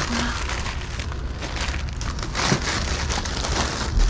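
Plastic bags and packaging rustling and crinkling continuously as items are rummaged through and handled, with a dull thump near the end.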